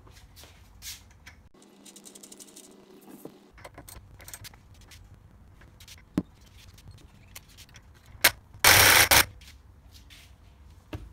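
Hand tools being handled: metal sockets and a ratchet clinking and scraping as they are picked out. There is a short run of fast even ticks a couple of seconds in and a brief loud rattle near the end.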